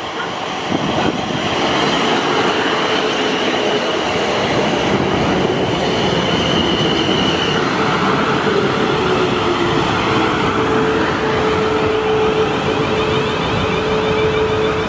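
Siemens Desiro Class 450 electric multiple unit running in along the platform: steady wheel-on-rail and carriage noise, with a thin high squeal for a few seconds near the start and a steady lower tone through the second half.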